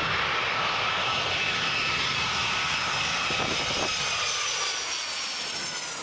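Jet airliner engines on a low approach passing overhead: a loud, steady rush of engine noise with high whines that slowly fall in pitch.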